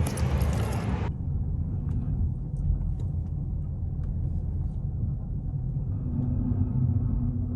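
A car being driven, heard from inside the cabin: a steady low rumble of engine and road noise. A steady low hum joins about six seconds in.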